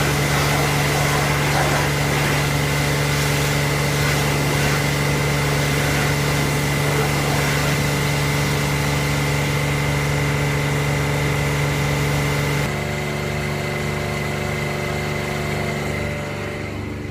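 Twin-pump pressure washer running steadily: a strong machine hum with a thin high whine and a spray hiss. About three-quarters of the way through, the hum changes and the sound gets a little quieter.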